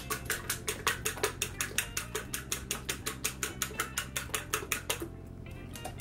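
A fork beating eggs in a small bowl, clicking quickly and evenly against the bowl's side at about six strokes a second, and stopping about five seconds in.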